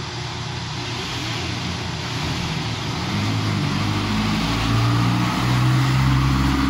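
A motor vehicle engine running close by, getting louder, its low hum shifting in pitch in steps from about three seconds in, over steady street noise.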